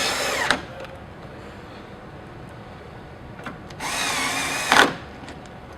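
Electric screwdriver whirring in two short runs, a brief one at the start and a second of about a second some four seconds in, driving the screws that fasten a rectifier power module.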